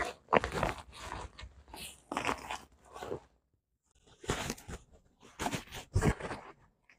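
Black plastic bubble-wrap packaging being pulled and torn open by hand: irregular crinkling and tearing of plastic in short bursts, with brief pauses between.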